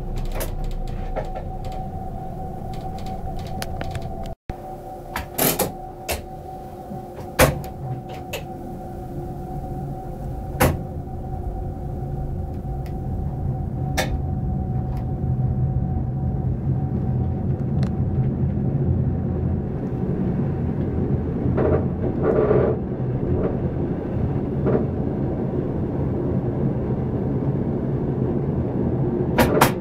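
Passenger train running, heard from inside the driver's cab. A steady rumble of wheels on track grows louder over the second half. A steady whine is heard in the first half, and there are scattered sharp clicks and knocks.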